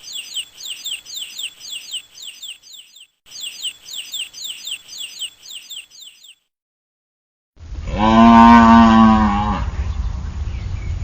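Two bouts of quick, high chirps, each chirp sweeping down in pitch. After a short pause comes a cow mooing once, loud and long, for about two seconds.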